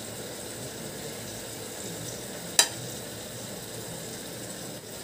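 A metal spatula scooping cooked rice from a steel pan onto a plate, with one sharp metallic tap about two and a half seconds in, over a steady low hiss.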